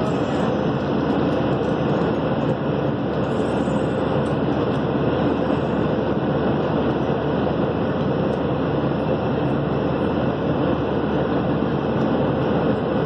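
Steady in-flight cabin noise of a Boeing 737-800: an even rush of engine and airflow noise that holds at one level throughout.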